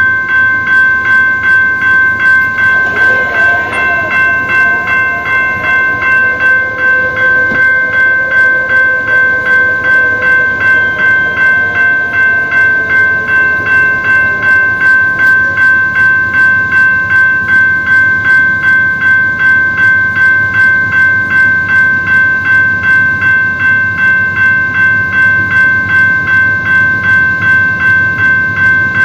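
Railroad crossing warning bell ringing in evenly repeated strokes, about two a second, as the crossing activates for an approaching train. A fainter, slowly falling tone runs underneath during the first half.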